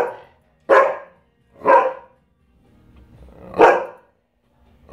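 Dog play barks: three single, separate barks, the first two about a second apart and the third about two seconds later.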